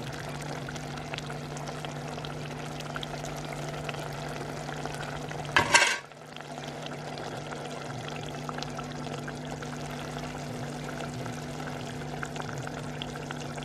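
Food frying in a pan, with small crackles over a steady low hum. About six seconds in there is a brief louder noisy burst.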